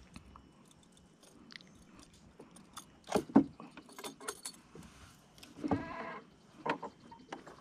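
Knocks and clatter in the bottom of a small wooden boat as an angler handles his catch: two loud knocks about three seconds in, then a metallic jingle, and a brief voice-like sound shortly after.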